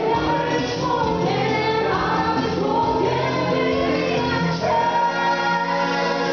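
A band performing a song, with singing voices over the instruments.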